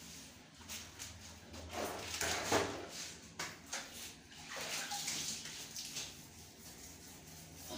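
Water splashing and swishing in a tiled bathroom, in bursts about two seconds in and again around five seconds, with a few light knocks.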